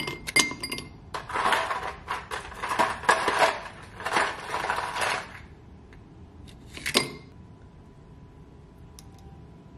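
Metal kitchen utensils clinking against dishes, then several rough scraping strokes over a few seconds, and one more clink about seven seconds in.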